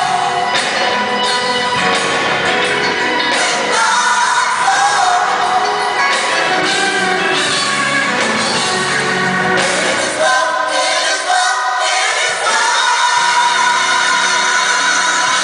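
Music with singing, loud and continuous.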